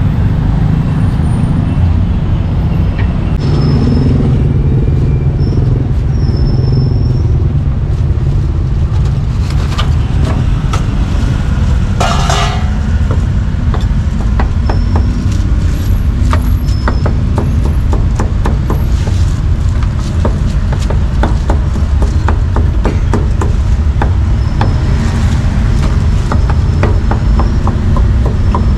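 Steady low rumble of street traffic. A run of quick, sharp knocks comes through the second half, several a second at its fastest.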